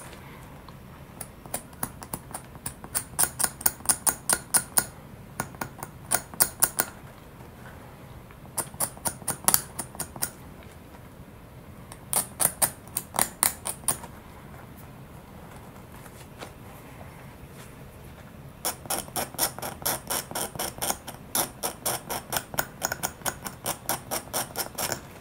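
X-Acto hobby knife blade scraping and cross-hatching a plastic connector plug, quick rasping strokes several a second in short runs broken by pauses, with a longer run near the end. The plug is being roughened so glue will bond to it.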